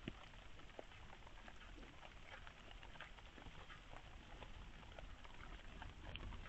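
Quiet outdoor night ambience: a low steady rumble with faint, scattered soft ticks and patter.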